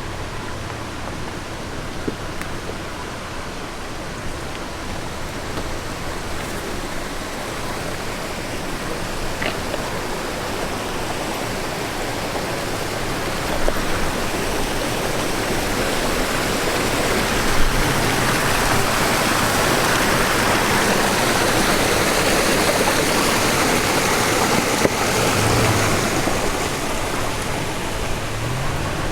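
A creek's water flowing steadily, growing louder through the middle and fading slightly near the end, with a vehicle engine running low underneath.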